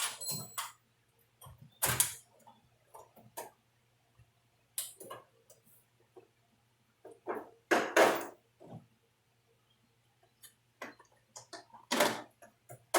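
Hands working on a chainsaw's bar and chain: scattered clicks, knocks and metal clinks, with a few longer scraping sounds about two, eight and twelve seconds in.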